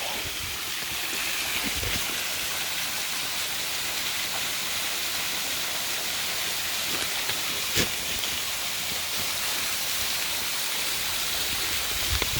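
Steady rush of a waterfall pouring over a sandstone ledge and splashing below, with one short knock about two-thirds of the way through.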